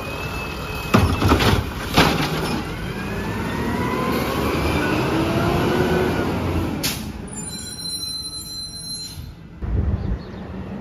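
CNG Peterbilt automated side-loader garbage truck emptying a recycling cart: two sharp knocks about a second apart as the cart is shaken out over the hopper, then a whine rising in pitch as the arm comes down and the truck pulls away. A short air hiss comes about seven seconds in.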